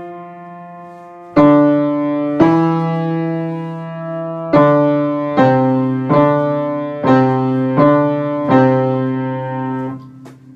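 Piano played slowly: eight notes struck one after another, each left ringing and fading until the next, the last released about ten seconds in.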